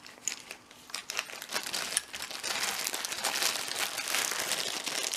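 Packaging being unwrapped by hand and crumpled: a few scattered crinkles and clicks, then steady dense crinkling from about halfway through.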